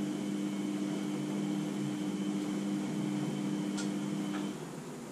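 A small electric appliance's motor hums steadily with a low two-note drone. A couple of light clicks come near the end, and then the hum stops abruptly.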